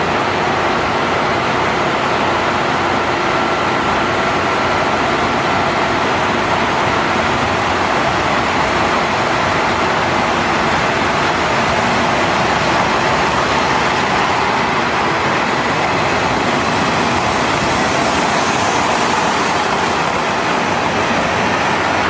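Steady running noise of a diesel train on the Soya Main Line, heard from inside the carriage as an even rush with no breaks.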